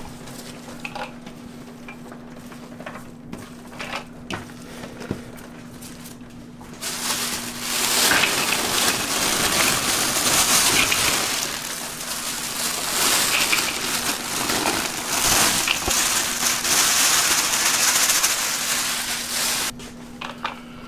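Gloved hands squishing and turning raw ground beef in a large stainless steel bowl, with small squelches and ticks. About seven seconds in, liquid is poured from a plastic jug onto the mince and worked in, bringing a loud, even wet hiss that stops abruptly near the end.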